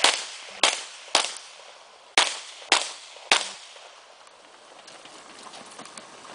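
About six handgun shots fired in quick strings in the first three and a half seconds, each a sharp crack with a short echoing tail. After that the firing stops and only faint small sounds follow as the shooter moves to a new position.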